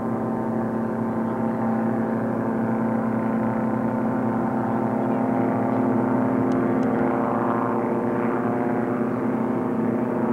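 Several Volkswagen air-cooled flat-four engined gyroplanes flying together, mostly on straight pipes, their engines and propellers making a loud, steady, many-layered drone. The sound swells a little about two-thirds of the way in as the group comes nearer.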